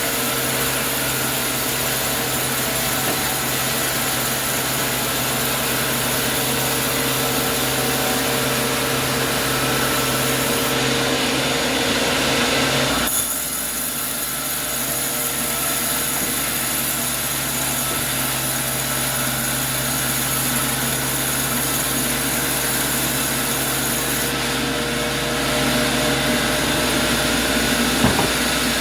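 Sawmill saw running and cutting through wood, a steady loud noise with a faint steady whine. The sound changes abruptly about halfway through and again near the end, with a sharp knock just before the end.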